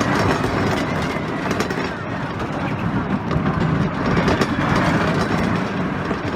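A century-old wooden roller coaster train rumbling and clattering along its track at speed, with a steady heavy rumble and rapid wheel clacks.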